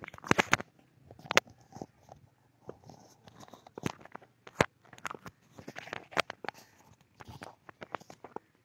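Scattered, irregular sharp clicks and crackles, a few of them louder than the rest, over a faint background.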